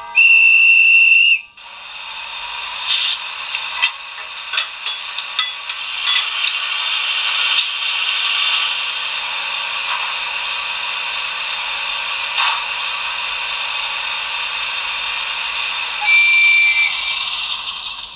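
Sound decoder of a model ČD class 151 electric locomotive playing through its small speaker: a loud, steady high horn note for about a second and a half, then a steady hiss that builds up over a few seconds with several sharp clicks, and a second, shorter horn note near the end.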